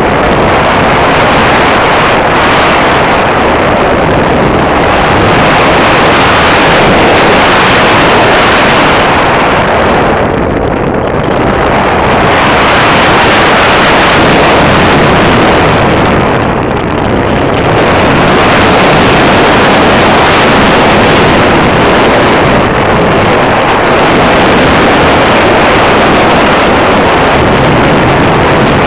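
Motor and wind noise picked up by a small camera on a model airplane in flight. It is a loud, steady noise that thins out briefly twice, about eleven and seventeen seconds in.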